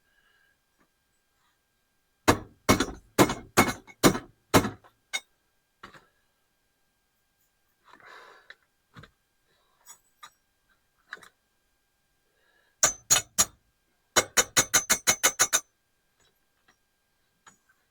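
Hammer blows on metal: a run of about six strikes a couple of seconds in, a few light knocks, then three more strikes and a fast ringing run of about nine near the end.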